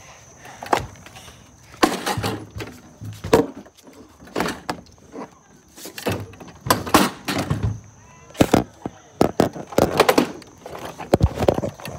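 A string of irregular knocks, bumps and rattles, some short and some lasting about a second, from a phone camera being handled and carried about.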